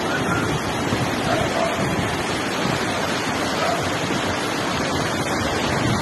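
Fast muddy floodwater rushing in a torrent: a steady, dense noise of flowing water.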